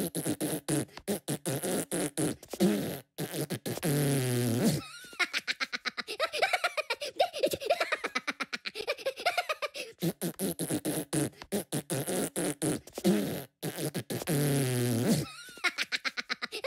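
A Minion's cartoon voice laughing in fast, stuttering pulses. The same few seconds of laughter repeat about ten seconds apart.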